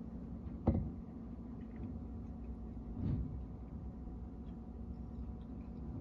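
Rear-loading garbage truck's engine idling with a steady low hum, with two dull thumps at the hopper, about a second in and again about three seconds in.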